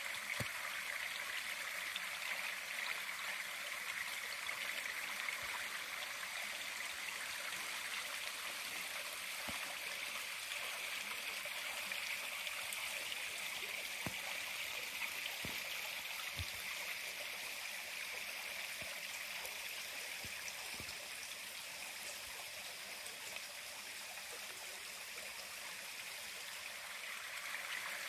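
Steady rushing of running water, an even hiss with no break.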